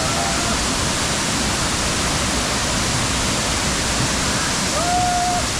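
Waterfall pouring steadily, a loud, even rush of falling water. A short held call, likely a voice, rises faintly over it near the end.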